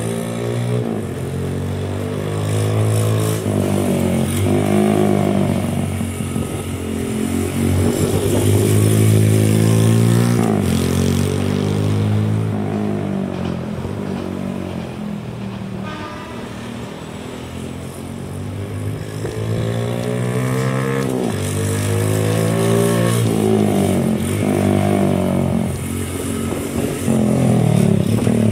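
Honda Gorilla minibike's 50 cc four-stroke single-cylinder engine running through an aftermarket OVER muffler, revving up and falling back again and again as the bike accelerates and shifts. The engine sound weakens in the middle as the bike rides away, then grows loud again as it comes back.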